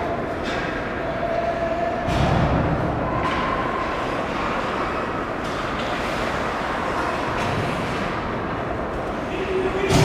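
Ice hockey play in a large arena: skates scraping the ice and sticks and puck clacking over a steady rumbling hum, with a thud about two seconds in and a louder knock at the very end.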